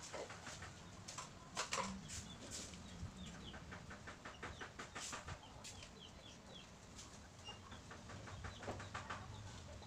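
Chickens clucking and small birds chirping, with two quick runs of marker scratching on paper, one around the middle and one near the end.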